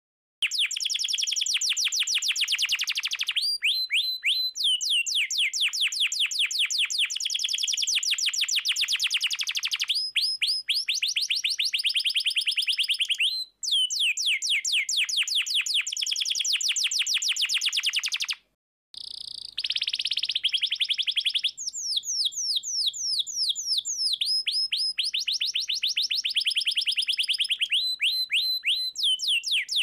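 Domestic canary singing a long song of fast rolling trills, rapid repeated high notes with changes of phrase, broken by two short pauses about 13 and 18 seconds in.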